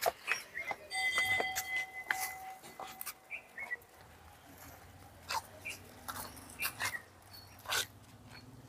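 Small birds chirping in short calls, with scattered sharp clicks and taps like footsteps on concrete steps. About a second in, a steady whistle-like tone holds for about two seconds.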